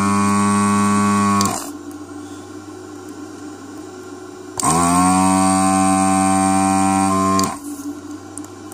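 Pro'sKit SS-331B desoldering station's vacuum pump running in two bursts, each rising in pitch as it starts and then holding steady, as it sucks molten solder out of a board joint through the gun. The first burst stops about a second and a half in, and the second runs from about four and a half to seven and a half seconds in, over a lower steady hum.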